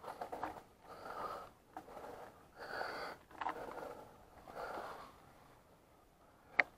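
A mountain biker breathing hard after an uphill climb: about six heavy breaths roughly a second apart, then a pause. A short sharp click near the end.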